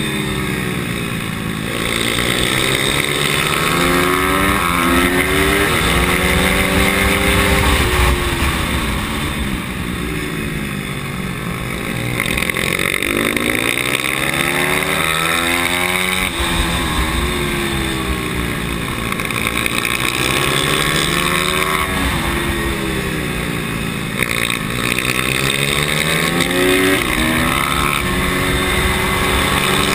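Pit bike's small single-cylinder engine heard on board at full race pace, its pitch rising and dropping back over and over as the rider accelerates out of bends and rolls off into the next ones.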